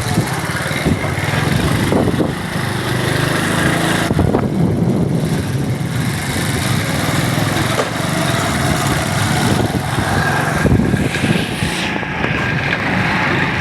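A small engine running steadily, with a fast low pulsing.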